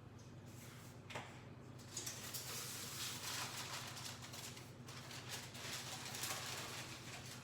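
Rustling handling noises, starting about two seconds in and going on unevenly, over a steady low hum.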